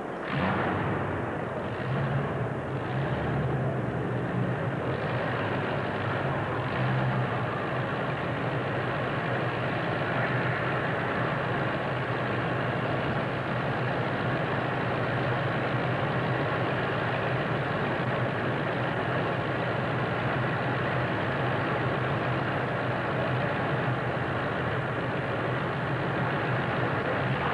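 Engine of a small modified pulling tractor running steadily, its pitch holding level without revving up. It comes in sharply just after the start.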